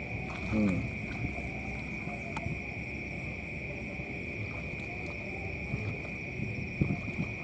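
A steady high-pitched chorus of night insects over the low rumble of wind on the microphone, with small splashes and rustles from wading through shallow water. About half a second in, a short falling call with several overtones.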